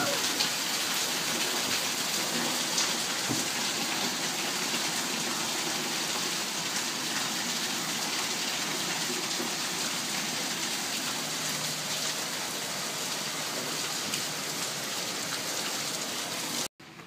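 Heavy rain pouring steadily onto a concrete backyard, hissing and splashing, with scattered sharper drops striking hard surfaces. It cuts off suddenly near the end.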